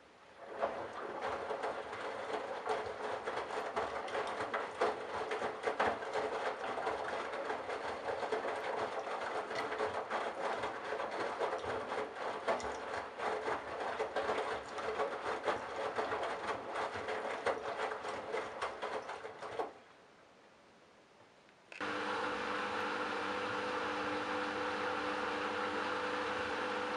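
Candy Bianca front-loading washing machine tumbling a load of wet towels, a busy clatter and swish with many small clicks, which stops abruptly a little before the end. About two seconds later a steady mechanical hum with fixed tones starts.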